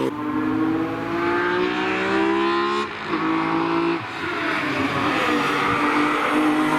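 BMW E46 M3 engine under hard acceleration on track, its pitch climbing through the revs. A quick upshift comes about three seconds in and a brief lift about a second later, after which the note dips and climbs again.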